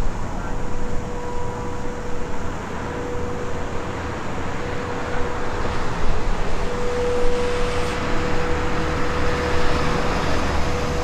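Whelen Vortex outdoor warning siren sounding a steady, single-pitch tone for its weekly test, swelling and fading every couple of seconds and strongest in the second half, over road traffic noise.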